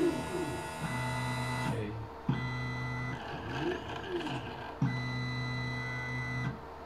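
Stepper motors of a 3D-printer-based pick-and-place machine whining as the head moves to pick a 0201 part from the tape feeder. The moves come as steady whines with rising and falling pitch sweeps as the motors speed up and slow down, and there is a brief stop near the end.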